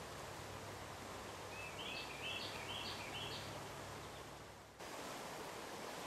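Steady rushing of the Chattahoochee River running high and fast during a dam water release. A bird calls four quick notes in a row about two seconds in, and the sound breaks off and cuts back in abruptly near the end.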